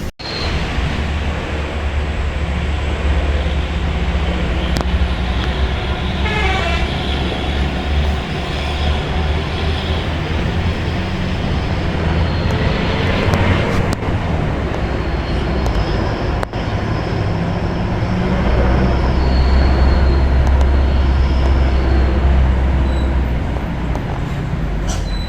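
Bus engine running steadily amid road traffic noise, with horns tooting. The rumble grows louder for a few seconds past the middle.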